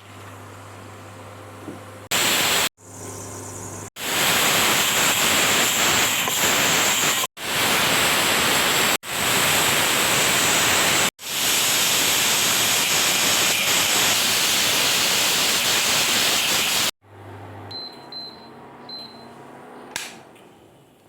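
Pressure cooker venting steam with a loud, even hiss that builds up and stops several times. Near the end it is quieter, with three short high beeps and a click.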